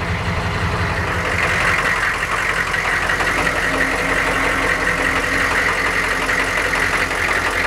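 Diesel truck engine idling cold with a steady rattle. The owner can't say whether a bad injector causes it or the engine is just noisy.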